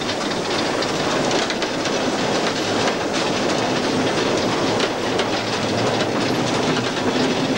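Steam locomotive 434.1100, a Škoda-built 2-8-0, running, heard from inside its cab: a steady, dense clatter of running gear and wheels on the rails.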